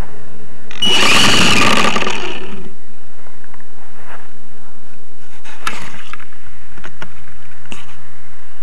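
Handling noise on a small onboard camera's microphone as a landed model plane is picked up from the grass. A loud rushing burst comes about a second in, followed by scattered clicks and knocks.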